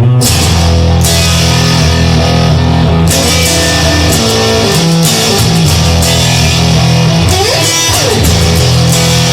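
Instrumental blues-rock music: electric guitar playing over low sustained bass notes, with a few notes bent up and down about seven to eight seconds in.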